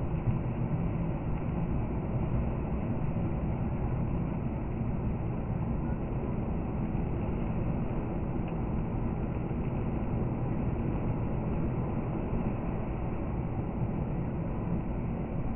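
Steady road and engine noise heard inside a car's cabin, cruising at about 95 km/h with the tyres running on a snow-covered road.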